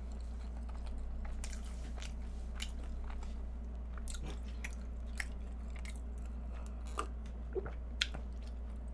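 Quiet close-up chewing of a flaky-pastry egg tart, with a few small sharp mouth clicks and crunches, over a steady low hum.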